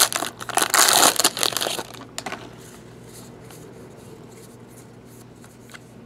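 Foil wrapper of a trading-card pack crinkling loudly as it is torn and pulled off the cards, for about the first two seconds; then faint slides and clicks as the stack of cards is handled.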